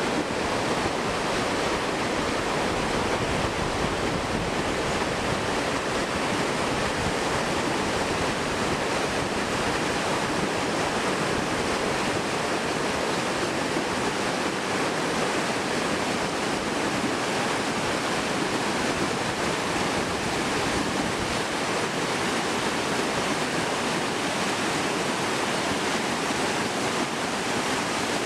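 Rocky jungle river rushing over boulders in white-water rapids: a steady, continuous roar of water.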